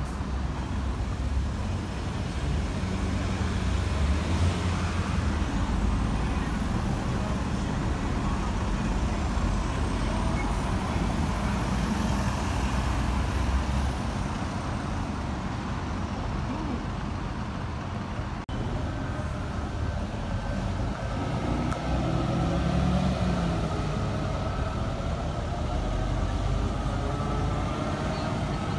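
Buses' engines running close by as a single-decker bus pulls away, with a steady low rumble. Later a rising engine note as a bus accelerates past.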